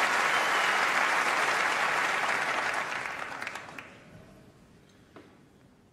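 Snooker audience applauding a century break. The applause holds strong for about three seconds, then dies away with a few last claps by about four seconds in. One light click follows near the end.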